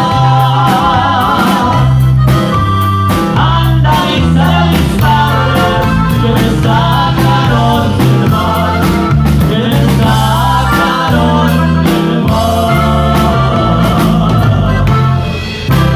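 Music with a singing voice over guitar, bass and a steady beat.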